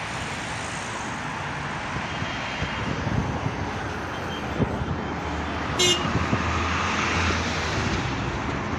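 Road traffic noise from cars passing on a street, swelling as a vehicle goes by about six to eight seconds in, with a brief high chirp about six seconds in.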